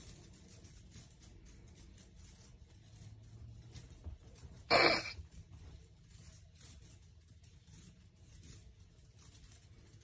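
Faint scratching and rustling of kittens moving about on bedding, over a low steady hum, with one short, sudden burst of noise about five seconds in.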